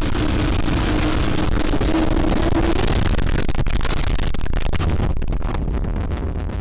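EF4 tornado striking a house, recorded from inside: a loud rushing wind noise with a steady low hum for the first few seconds. From about three seconds in come many rapid knocks and cracks as the core hits the house, easing near the end.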